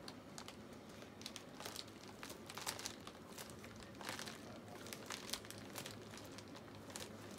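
Faint crinkling and rustling of a plastic mailing bag as it is handled and cut open with scissors, in soft irregular bursts.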